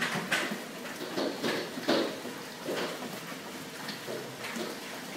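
Hailstorm: hailstones knocking sharply and irregularly, about one or two a second, over a steady hiss of falling hail and rain.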